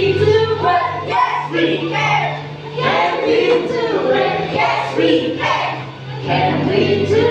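Worship song playing: several voices singing together over a steady bass line that shifts pitch every second and a half or so.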